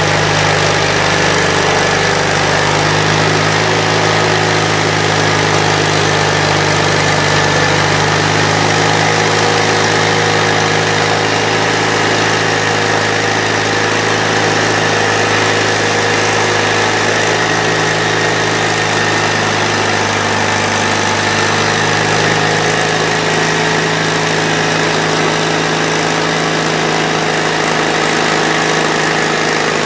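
Mighty Mite band sawmill's engine running steadily under load as the band blade cuts lengthwise through an Alaska yellow cedar cant, the saw head feeding slowly along the log.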